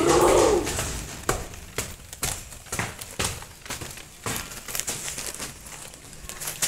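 Rustling handling noise of a handheld phone being carried while walking, with many scattered sharp clicks and knocks.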